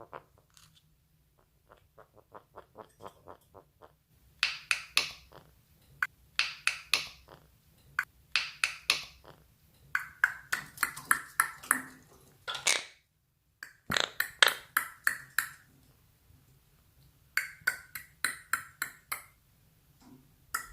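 Monk parakeet (quaker parrot) clicking: rapid trains of sharp clicks, several a second, in bursts of about a second that repeat every couple of seconds, starting faint and growing louder about four seconds in.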